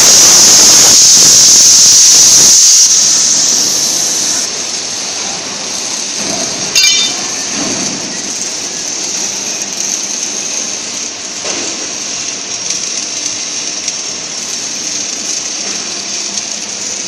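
CNC plasma cutting torch cutting steel plate: a loud, steady hiss that tapers off about three to four seconds in. Then quieter steady noise, with one sharp click about seven seconds in.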